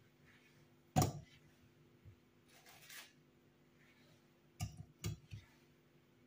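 Kiwi pieces dropped into a plastic mini-chopper bowl, knocking against the plastic. There is one sharp knock about a second in, a short rustle, and then two more knocks close together near the end.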